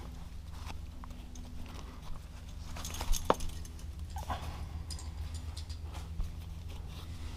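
Scattered clicks and knocks from a climber's carabiners and quickdraws jostling on the harness and hands and shoes meeting the rock, the loudest a pair of sharp clicks about three seconds in, over a steady low rumble.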